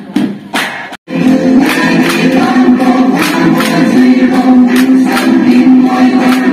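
Bamboo poles clacking together in a steady rhythm for the bamboo stick dance. About a second in, after a momentary dropout, a chorus of voices sings over the clacks, which keep time at about two a second.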